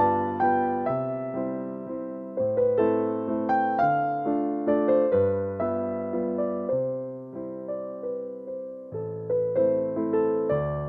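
Background music: a gentle piano melody, notes struck one after another and fading between strikes.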